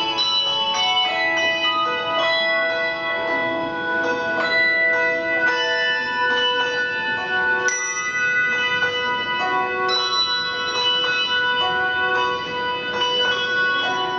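Handbell ensemble playing a melody: hand-rung bells struck one after another, each tone ringing on and overlapping the next into chords.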